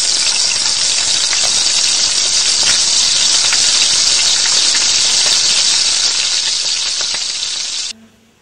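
Bolognese sauce sizzling in a wok: a loud, steady hiss with scattered small pops and spits, cutting off abruptly near the end.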